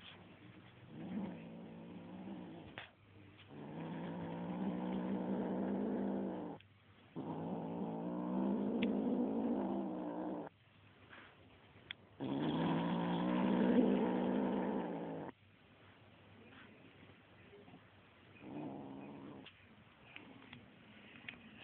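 A kitten growling over a feather toy in drawn-out, steady growls, three long ones of about three seconds each, with shorter growls before and after.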